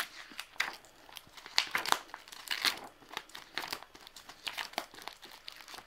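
Clear plastic sheet protectors in a ring binder crinkling and rustling as the pages are handled and turned, in a string of short, irregular crackles.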